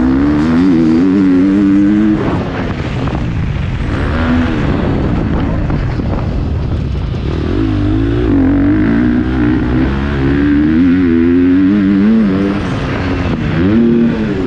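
Motocross bike engine, recorded from a camera on the bike, revving hard as the rider opens and closes the throttle around the track; the pitch climbs and drops again and again, with lulls where the throttle is rolled off.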